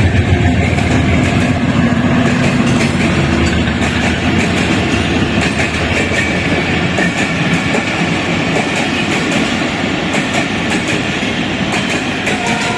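A train running on the rails: a steady rumble with rapid clicking of wheels over the track throughout.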